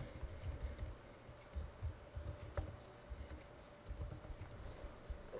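Typing on a computer keyboard: irregular, quiet keystrokes in short runs.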